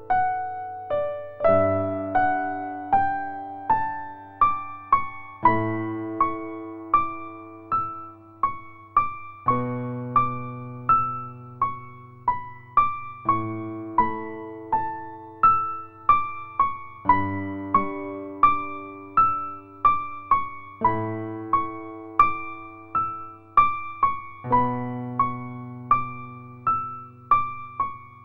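Background music: a gentle solo piano playing slow rising arpeggios over held low bass notes, with the chord changing about every four seconds.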